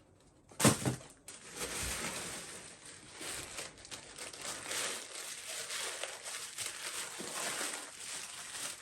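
Plastic packaging crinkling and rustling continuously as it is handled and opened, after a single sharp knock about half a second in.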